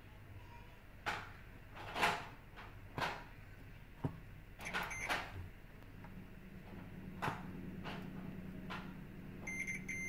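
Multimeter test probe tips tapping and scraping on a printed circuit board, a handful of light clicks. Near the end the meter's continuity beeper starts a steady high beep, the sign that the two probed points are connected.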